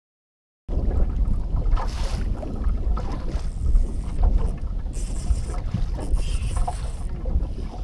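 Wind buffeting the microphone on a small fishing boat out on choppy water, a heavy rough rumble with waves lapping at the hull. It starts suddenly just under a second in.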